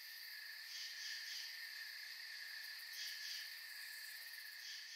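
Faint insect chorus: a steady high trill, with a few soft chirps rising over it now and then.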